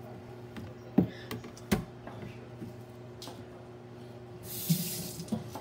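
A red plastic cutting board and chef's knife being moved and set down on a speckled stone countertop: two sharp knocks about a second in, then a short scraping rustle near the end.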